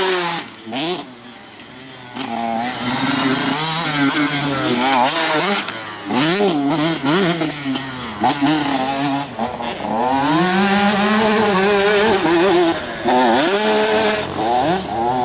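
Motocross bike engines revving hard, pitch climbing and dropping again and again with throttle and gear changes. There is a brief quieter stretch about a second in.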